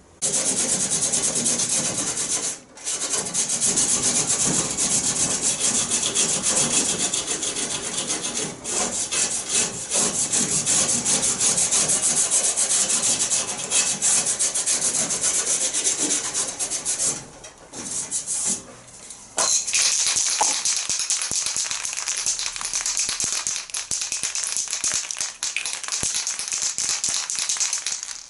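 Aerosol spray can spraying paint onto bare steel body panels in long hissing bursts, with short breaks about two and a half seconds in and again around two-thirds of the way through.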